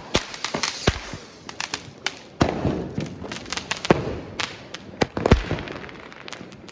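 Diwali firecrackers going off: many sharp bangs at uneven intervals, some close together and some further off.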